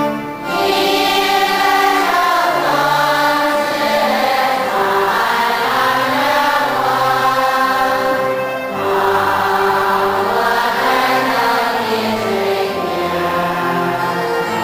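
Church congregation singing together in long held phrases, with brief breaks between phrases about half a second in and again near the middle.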